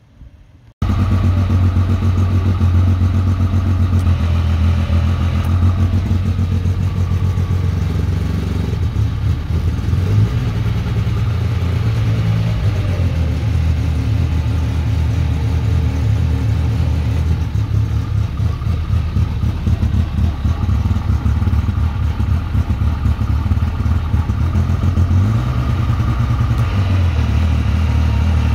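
A 4,500-lb electric winch on a side-by-side UTV pulls under heavy load, hauling a shipping container through snatch blocks, with the UTV's engine running. The low, steady mechanical drone starts abruptly about a second in and shifts in pitch a few times.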